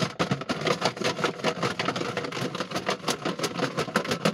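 Chicken wings and hot sauce being shaken hard in a closed plastic food container, a fast, steady rattling and knocking to coat the wings.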